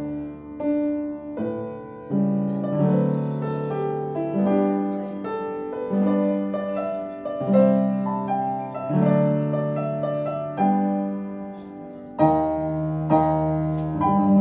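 Piano being played: sustained chords with a melody over them, the chords changing every second or two, and a louder chord struck about twelve seconds in.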